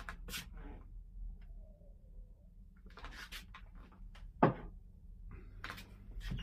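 Quiet clicks and handling noises of a person pausing to drink water, with one sharper knock about four and a half seconds in.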